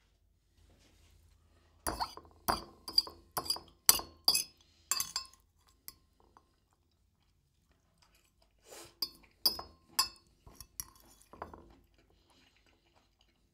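Cutlery clinking against a plate while the spaghetti is eaten: a quick run of about eight sharp clinks, then a second run a few seconds later.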